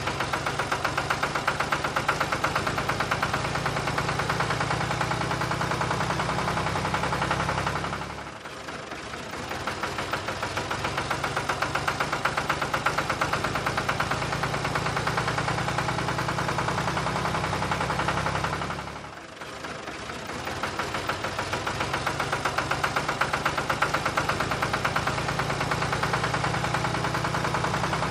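Tractor engine sound effect running steadily with a fast, even knocking pulse. It fades down and comes back about eight seconds in and again about nineteen seconds in, like a looped recording restarting.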